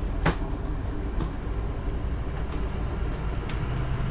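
Electric slide-out room of a 2023 Forest River Salem Platinum 26RBSX travel trailer moving out under power, a steady low mechanical rumble, with one sharp click about a quarter second in.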